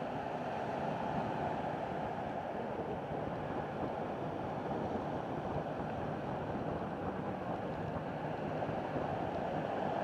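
Atlantic waves breaking on black lava rocks and a concrete sea wall: a steady rush of surf and churning water, with no single crash standing out.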